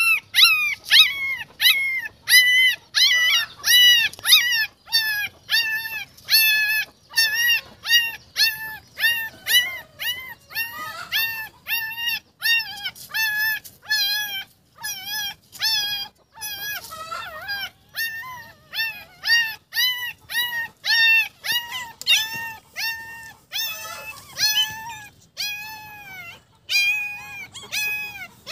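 Young puppies crying in a steady run of short, high-pitched whimpers, about two a second, each cry rising and then falling in pitch.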